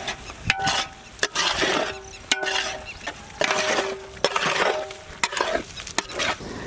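Large metal spatula stirring thick mutton keema in a big cooking pot: a metallic clank with a brief ring about once a second, each followed by a scrape through the mince.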